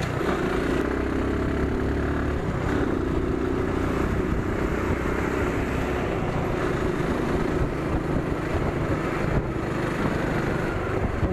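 Motorcycle engine running steadily while riding at cruising speed, heard from the rider's seat with road and wind noise.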